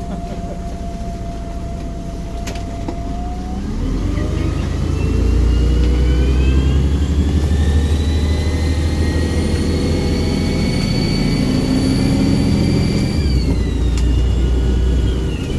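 Volvo Olympian double-decker bus's turbo diesel engine pulling away: the engine note builds and a turbocharger whistle rises to a high steady whine, then drops away about thirteen seconds in as the throttle comes off.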